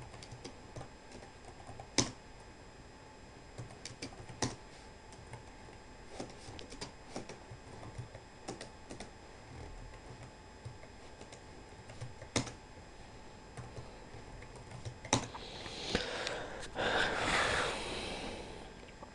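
Computer keyboard typing: scattered, irregular keystroke clicks, a few of them louder than the rest, as commands are typed into a terminal. Near the end a louder rustling hiss lasts about two seconds.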